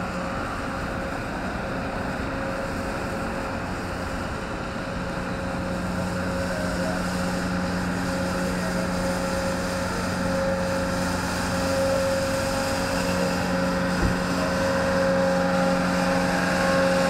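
Compact utility tractor with a front rotary sweeper brush clearing snow from a sidewalk. The engine runs with a steady hum under the rushing of the brush, growing gradually louder as it comes closer. A single knock sounds about fourteen seconds in.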